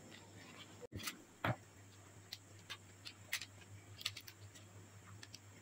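Faint, scattered clicks and light taps of hands folding and pressing a banana-leaf parcel of glutinous rice and banana, with one louder soft knock about one and a half seconds in.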